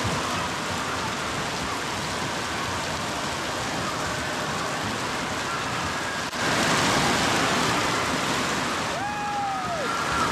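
Steady rushing and splashing of water at a water slide: water running through the slide's runout trough and spray falling. About six seconds in, the sound breaks briefly and comes back louder, and near the end a short falling squeal rises above it.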